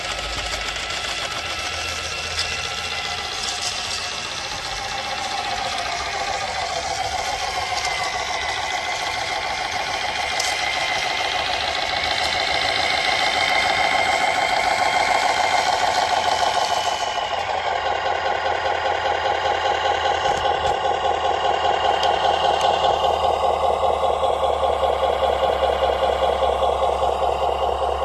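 Simulated diesel truck engine sound from the RC Mack Titan model truck's sound unit. The pitch rises and falls as the truck drives, then about 17 seconds in it drops and settles into a steady, evenly pulsing idle.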